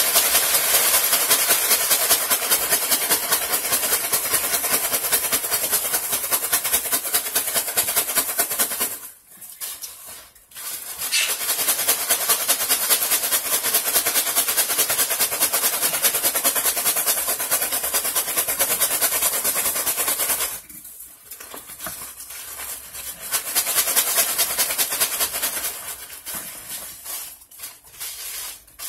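Crushed ice and salt shaken hard in a container: a fast, even rattling hiss that stops twice for a second or two and turns patchy near the end.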